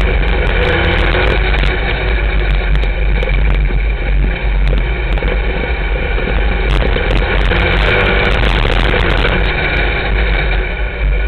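Sport modified dirt-track race car's V8 engine running steadily, heard from inside the car's cockpit.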